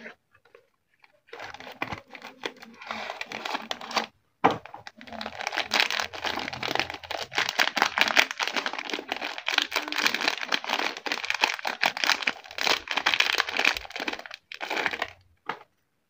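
A bar soap's paper wrapper and cardboard box crinkling and tearing as they are pulled open and peeled off by hand. The crackling runs almost throughout, with a sharp snap about four seconds in.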